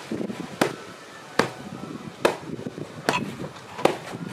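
Fists punching a wall-mounted wing chun sandbag: five sharp hits, evenly spaced a little under a second apart.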